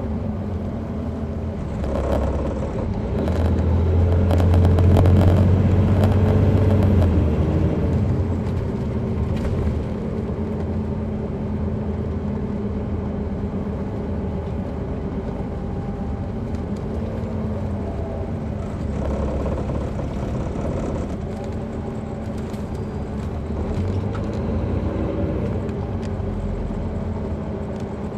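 Caterpillar C13 diesel engine of an MCI D4500CL coach bus heard from inside the cabin while under way. It grows louder from about two to eight seconds in, runs steadily, then climbs in pitch a couple of times later on, with scattered clicks and rattles over the drone.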